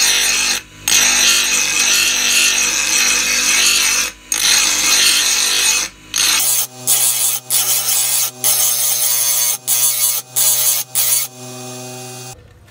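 Bench grinder wheel sharpening a steel blade: a long continuous grind broken by a few brief lifts, then about a dozen short passes of the blade against the wheel over the motor's steady hum.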